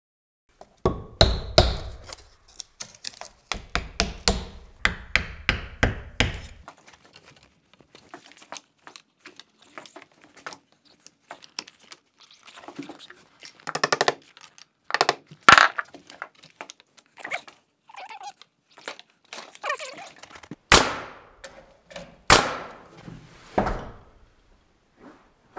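Wooden knocks and taps as tapered wood shims are worked in around a prehung exterior door's jamb, with two quick runs of tapping early on. Later come a few sharper thunks as the door is pushed shut against its jamb and weatherstrip.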